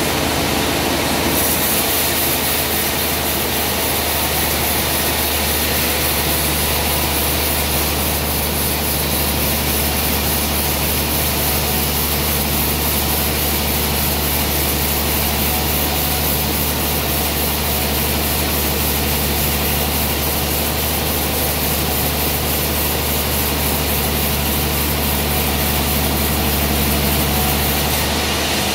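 Large log band saw running steadily at a sawmill, its blade cutting lengthwise through a trembesi (rain tree) log, with a deep motor hum. A high hiss joins about a second in and stops just before the end, as the cut runs.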